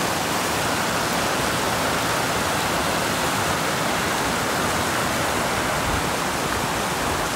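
Fast-flowing mountain stream rushing over rocks: a steady, even rush of water.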